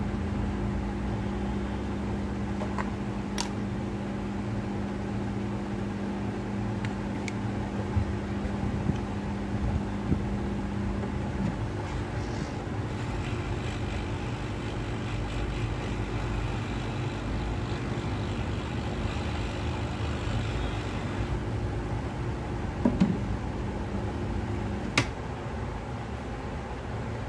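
Steady background rumble with a low hum, broken by a few sharp clicks. One hum tone stops about halfway through, the other shortly before the end.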